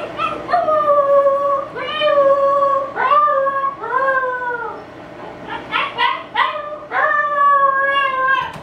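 Young Siberian Husky puppy howling, upset at being shut in alone: a run of about five drawn-out howls, each rising quickly then sliding slightly down, with a few short yips in the middle and a last long howl near the end.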